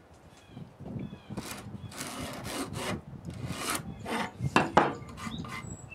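Pencil scratching a cut line across a 2x8 board along a speed square, in several scratchy strokes, with a couple of sharp clicks near the end.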